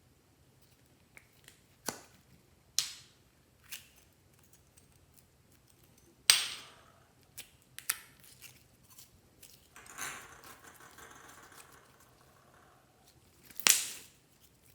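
Slime being pressed and stretched by hand, giving a string of sharp pops and clicks, the loudest about six seconds in and near the end, with a softer crackly squish lasting a couple of seconds past the middle.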